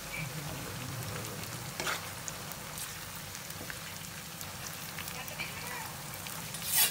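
Sliced garlic frying in hot oil in a pan: a steady sizzle with fine crackles, as a metal spoon stirs it. There is a brief louder burst near the end.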